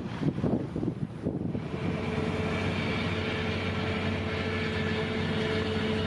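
Wind buffeting the microphone, then, about a second and a half in, a steady mechanical drone with several held tones sets in.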